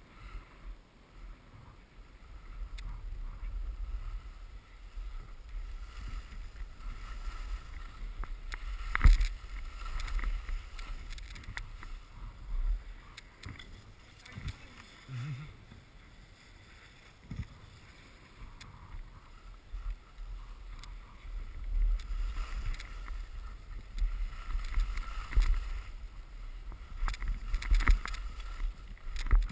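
Skis scraping and hissing over snow in uneven surges as the skier turns down the slope, with wind rumbling on the body-worn camera's microphone and a few sharp knocks.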